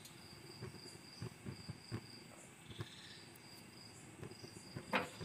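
Crickets chirring faintly and steadily, with soft scattered clicks and a sharper knock near the end.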